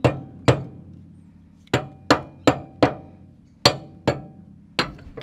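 A hand hammer striking the steel spindle on a Toyota solid-front-axle steering knuckle, about nine sharp blows in uneven groups, each ringing briefly. The spindle is being knocked loose from the knuckle.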